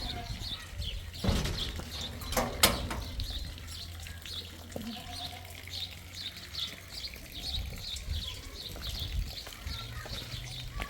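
A flock of sheep and goats bleating, over a steady run of short high chirps, with one sharp knock about two and a half seconds in.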